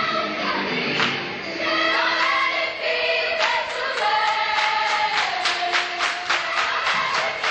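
A choir singing with music. About halfway in, a steady beat of sharp strikes comes in, roughly three a second.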